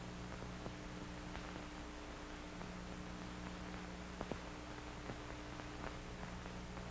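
Steady hiss and low hum of an old film soundtrack, with a few faint clicks.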